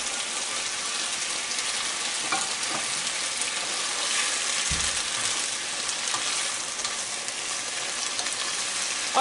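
Chickpeas, potatoes, onions and freshly added chopped tomatoes sizzling steadily in olive oil in a wok over a high gas flame, stirred with a wooden spatula. A brief low thump comes about halfway through.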